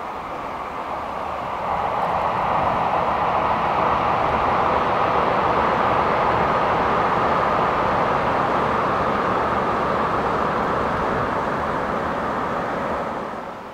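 N700A-series Shinkansen bullet train running over a steel truss bridge at speed: a steady rushing rumble that builds about two seconds in, holds, and drops off sharply near the end.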